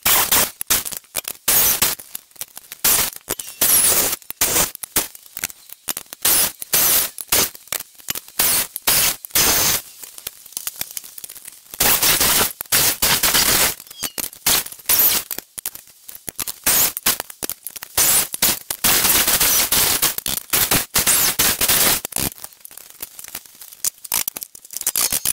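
Corded electric drill boring holes through the steel top of a propane cylinder around its valve. It runs in many short stop-start bursts, with a couple of longer runs.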